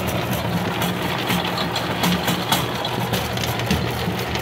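A motor-driven machine running steadily, a low even hum with irregular light clicks and rattles over it.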